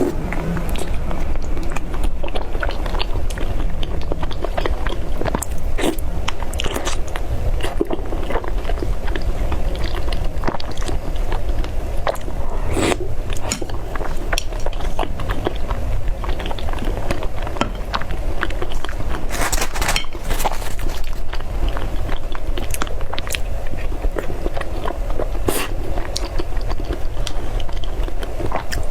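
Close-miked biting and chewing of soft mochi balls: a continuous run of small wet mouth clicks and smacks, with a few louder bites along the way.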